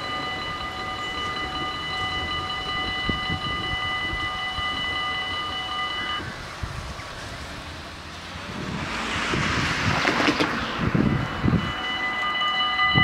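Dutch level-crossing warning bells ringing with a steady electronic ring, stopping about six seconds in as the barriers lift. A few seconds of noise follow, then the bells start ringing again near the end as the crossing lights come back on.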